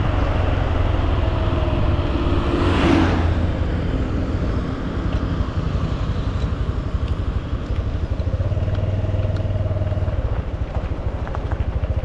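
Honda Super Cub C125's single-cylinder engine running steadily while riding, heard over a steady rush of road noise. About three seconds in, the rushing noise briefly swells louder.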